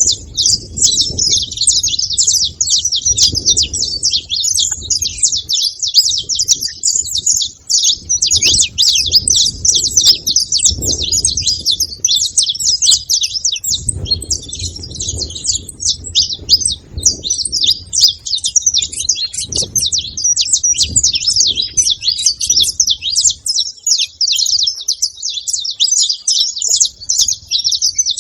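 Saffron finch (canário-da-terra) chattering and twittering in a fast, unbroken stream of high chirps. An uneven low rumble sits underneath and dies away near the end.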